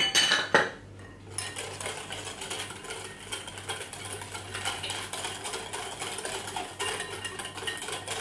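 A metal wire whisk beating a thick egg-yolk, sugar and cornflour mixture in a glass mixing bowl, its wires rattling and clinking against the glass in a fast steady rhythm. It opens with a louder clatter, pauses briefly, then settles into continuous whisking about a second in.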